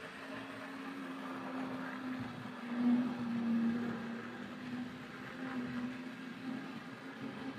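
Hornby Dublo Class 20 model diesel locomotive running on its test track: a steady electric motor hum with wheels on rail, wavering a little and swelling briefly about three seconds in. It is running on new brushes and a re-magnetised motor.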